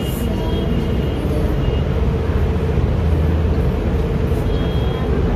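Steady low rumble with a constant hum, no speech.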